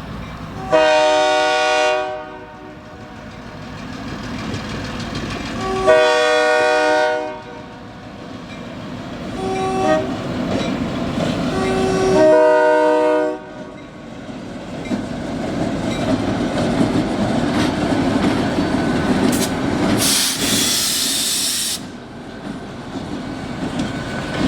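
Union Pacific locomotive horn sounding the grade-crossing signal: long, long, short, long. The train then rumbles past, wheels clicking over the rails, with a brief hiss about 20 seconds in.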